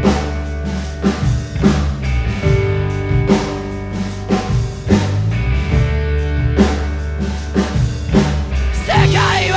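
Rock song with a drum kit keeping a steady beat under bass and electric guitar.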